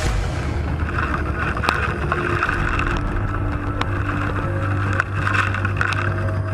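Steady rush of floodwater and rain, with a low steady hum underneath and a few sharp knocks.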